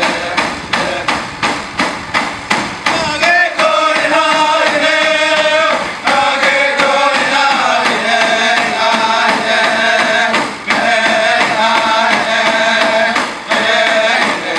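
Dene hand drummers beating round, single-headed frame drums in a steady, even beat of about two to three strokes a second, while a group of men sings in unison; the singing grows strong about three seconds in.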